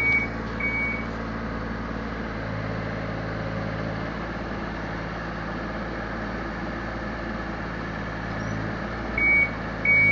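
Excavator diesel engine running steadily. Its travel alarm beeps twice at the start and again near the end, a sign the tracks are moving.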